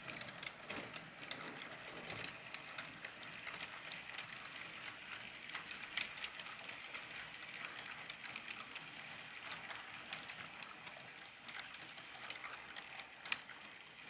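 HO scale model freight cars rolling past on the track, their small wheels making a steady clatter of quick, irregular clicks, with one sharper click near the end.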